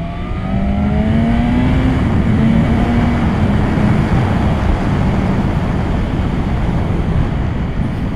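BMW superbike's inline-four engine revving up hard under acceleration, its pitch climbing for about two seconds, then running at a steadier note. Heavy wind rush over the microphone at speed.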